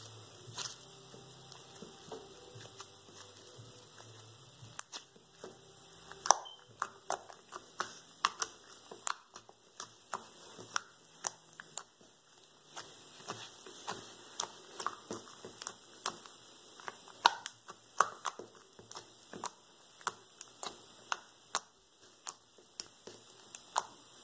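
Homemade slime being poked and squished by fingers on a hard surface, making sharp sticky clicks and small air-bubble pops. They come irregularly, sparse at first and then one or two a second from about six seconds in.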